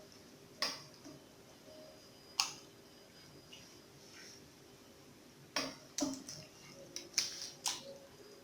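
Metal skewers clicking and clinking as pieces of raw marinated chicken are pushed onto them by hand: a few sharp, separate clicks, then a quicker cluster of them near the end.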